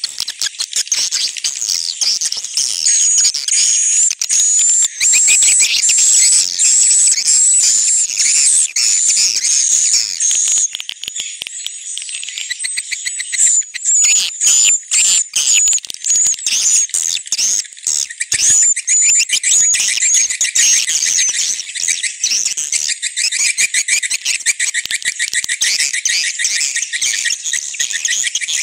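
Swiftlet lure call: a dense, high-pitched recording of swiftlet chirps and twittering, with rapid clicking and repeated short whistled notes, played to draw swiftlets into a nesting house.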